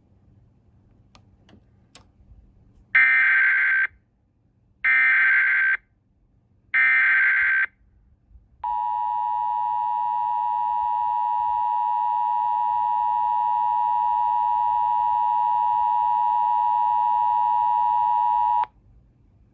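Emergency Alert System SAME header: three one-second bursts of digital data tones, evenly spaced, followed by the EAS two-tone attention signal (853 and 960 Hz sounded together). The attention signal is held steady for about ten seconds and then cuts off suddenly.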